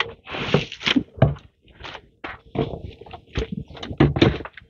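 Cardboard box and packing inserts being handled: scraping, rustling and knocking, with a few dull thunks, as the packed unit is pulled out, and plastic wrapping rustling near the end.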